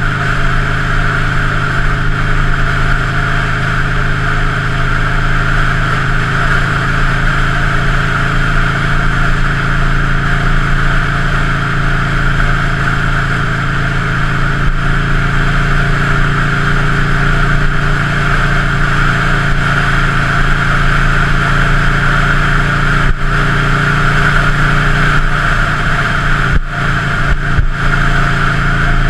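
2003 Buell Lightning XB9's V-twin engine running steadily under way, with a few brief dips in the sound near the end.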